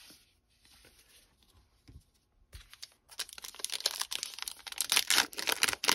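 A foil wrapper of a 2021 Topps Heritage baseball card pack is torn open and crinkled in the hands. After a few near-quiet seconds of light handling, the crackling tearing starts about halfway through and continues steadily.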